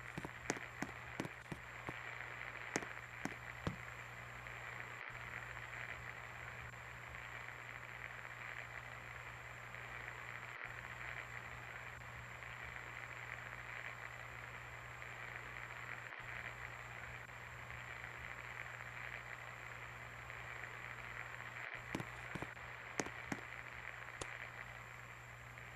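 52-inch Singer Classic Deluxe ceiling fan running steadily: a low motor hum under an even rush of air. Scattered sharp clicks come in the first few seconds and again near the end.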